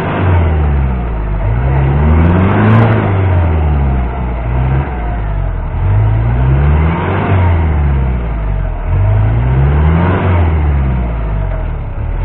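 Mitsubishi L200 pickup's engine revving up and dropping back about four times as the truck works to drive out of deep mud it is stuck in.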